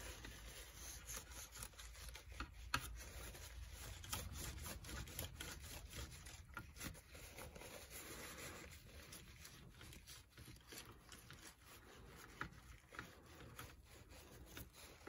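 Faint handling noise: light rubbing and scattered small clicks of hands working with small parts, with one sharper click nearly three seconds in.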